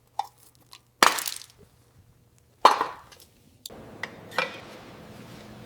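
Two sharp metallic clinks, about a second and a half apart, each ringing off briefly: hand tools striking metal engine parts. A faint steady hiss with a couple of light ticks follows.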